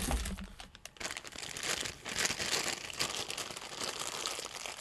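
Crinkly rustling of fluffy fibre stuffing being handled and pulled apart into tufts for stuffing a knit glove plush, with a thump right at the start.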